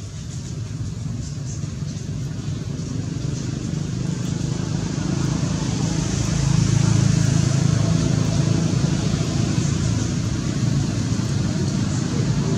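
A motor vehicle's engine running: a steady low rumble that grows louder over the first half and then holds, with faint voices behind it.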